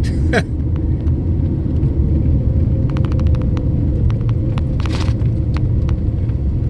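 Vehicle driving along a road, heard from inside the cabin: a steady, loud low rumble of engine and tyres, with scattered light clicks and ticks, several in a row about three seconds in.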